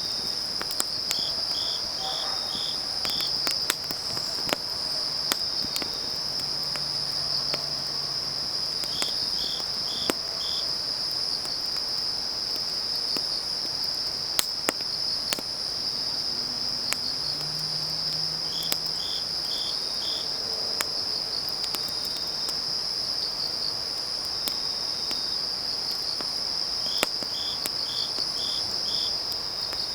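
A chorus of night grass insects trilling steadily and high-pitched, with another insect chirping in sets of four every eight to ten seconds. A wood fire gives scattered sharp crackles and pops over it.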